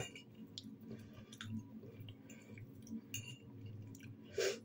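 A person chewing a mouthful of fried potatoes, with a few light clicks of a metal fork against a ceramic bowl and a louder click near the end.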